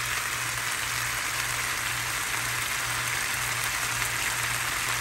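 Seasoned chicken drumsticks sizzling steadily in a hot grill pan, searing to seal them and take grill marks. A low hum runs underneath.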